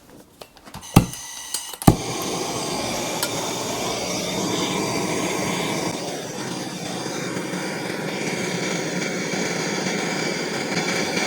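Two sharp clicks, then a gas blowtorch lights and burns with a steady rushing hiss as it heats a copper pipe joint for soldering.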